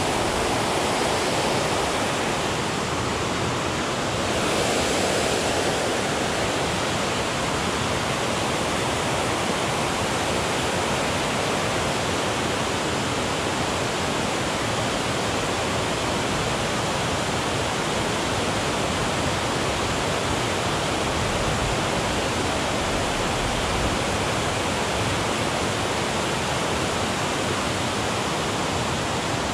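Water pouring over a spillway and the river running below it: a steady, even rush with no let-up.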